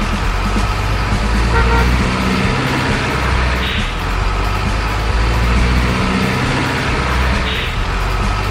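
Heavy truck engine sound running with a low pulsing rumble, a short horn toot about one and a half seconds in, and two brief air hisses, about four and seven and a half seconds in.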